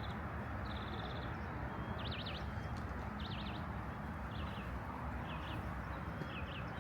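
Songbird calling repeatedly: short buzzy trills and quick zigzag chirps a second or so apart, over a steady low background hum.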